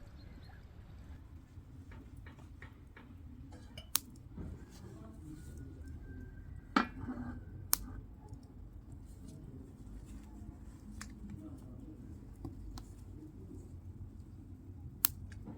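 Scattered small clicks and knocks over a low steady background, with a few sharp, loud clicks: about four seconds in, twice near the middle, and once near the end.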